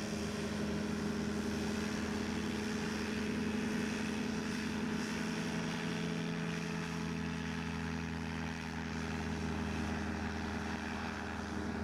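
A light floatplane's engine and pusher propeller running steadily in flight, a continuous drone holding one pitch as the aircraft flies low past.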